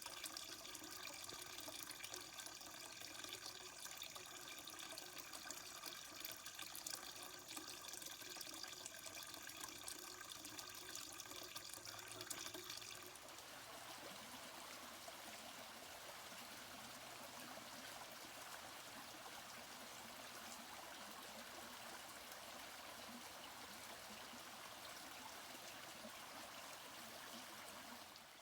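Flowing stream water rushing and trickling, with faint steady tones running through it. About halfway through it cuts to a second water recording, an even rush without the tones.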